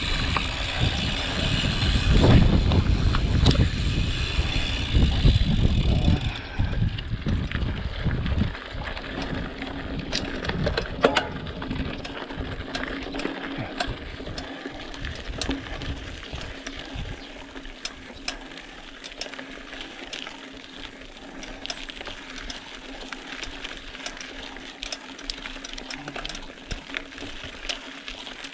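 Mountain bike descending a rocky mountain trail: heavy wind rumble on the microphone for about the first six seconds, then the bike rattling and clicking over stones, with a steady hum underneath.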